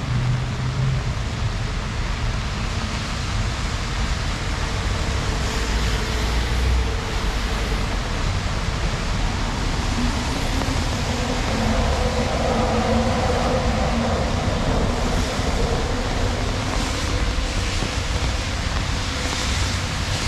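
Steady hiss of heavy rain on a city street, with wet traffic going by. A low engine hum swells from about ten seconds in for several seconds.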